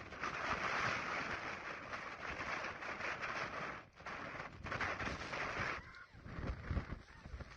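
Strong gusting wind buffeting the microphone: a loud, crackling rush that breaks off briefly about four seconds in and drops away near six seconds.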